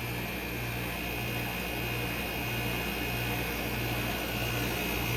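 Carrier Siesta window air conditioner running on normal cool just after startup, its compressor and fan motor giving a steady hum with a low throb that pulses about every two-thirds of a second.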